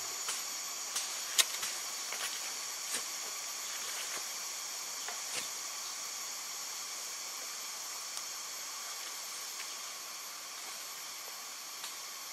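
Steady, high, many-layered drone of forest insects, with a few scattered sharp snaps, the loudest about a second and a half in.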